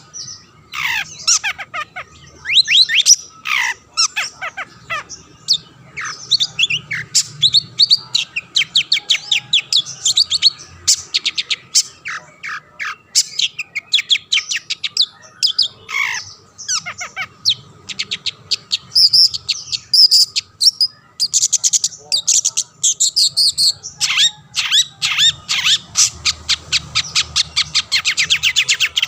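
Long-tailed shrike (cendet) singing vigorously: a rapid, unbroken chatter of harsh squawks, fast trills and quick falling whistles.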